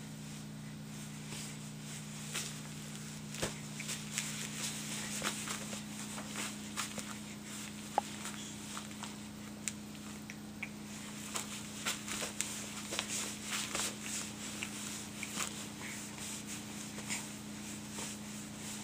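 Soft rustling and scattered light clicks of movement over a steady low hum, the clicks coming more often in the second half.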